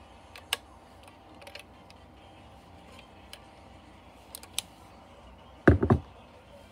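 Hand tools working on a NuTone bathroom fan's metal motor bracket: scattered light metallic clicks and taps, then a louder clatter of about three knocks near the end.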